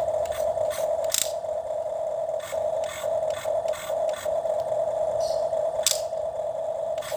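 Toy excavator's small electric motor whining steadily at one pitch, briefly breaking off several times, with irregular plastic clicks and scrapes.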